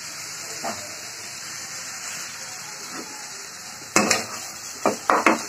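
Chicken feet and spice paste sizzling steadily in a kadai. From about four seconds in, a steel spatula stirring them, with several sharp knocks and scrapes against the pan.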